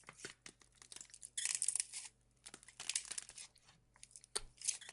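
Slime being squeezed and worked by hand, giving crackling, crinkly pops that come in about three short bursts with quiet gaps between.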